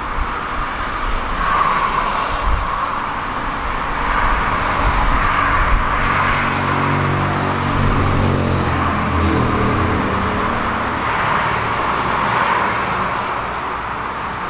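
Road traffic: cars passing at speed, their tyre noise swelling and fading every few seconds. In the middle a deeper engine hum joins for a few seconds, then fades.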